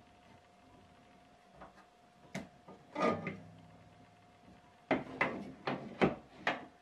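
Metal shelf brackets and a spirit level handled against a wall: scattered knocks and clacks, then a quick run of about five sharp clacks near the end.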